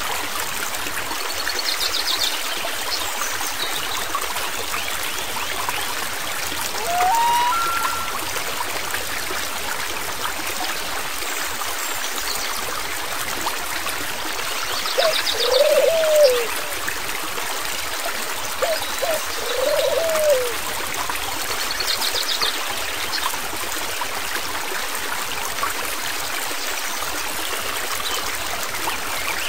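Steady rushing and trickling of a flowing stream, with birds calling over it: a few short buzzy trills, a brief rising whistled phrase, and, louder, two low arching call notes a few seconds apart in the second half.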